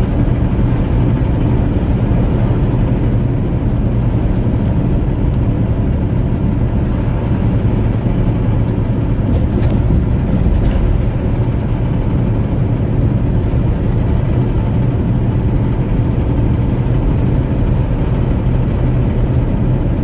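Inside a loaded semi-truck's cab at highway speed: a steady low diesel engine drone with road and wind noise, and a faint wavering high whine. Two light clicks come about halfway through.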